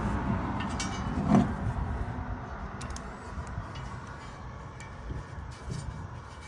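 Light metallic clicks and taps of hand tools being handled during valve stem work on a tire, with one sharper knock about a second and a half in, over a low steady rumble.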